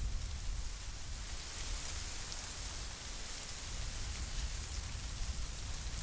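Wind blowing through dry barley stalks: a steady rustling hiss over a low rumble of wind.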